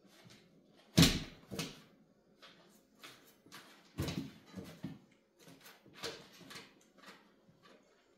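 Sleeping husky's paws kicking against wooden kitchen cabinet doors in its sleep: a series of irregular knocks and thumps, the loudest about a second in, with more around four and six seconds in and fainter taps between.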